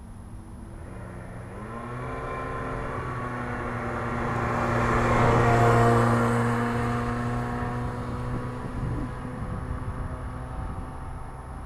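A 1991 Subaru Sambar Dias II supercharged kei van drives past. Its engine note rises about a second in, then holds steady, growing louder with tyre noise as the van comes closer, and is loudest as it passes about six seconds in before fading away.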